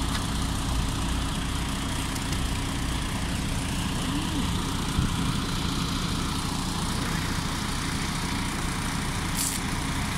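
Heavy truck diesel engines idling steadily, an even low drone with no revving.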